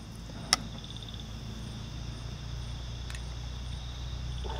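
Crickets trilling in pulses over a low steady hum, with one sharp click about half a second in as the cap of a baijiu bottle is opened, and a fainter click near the end.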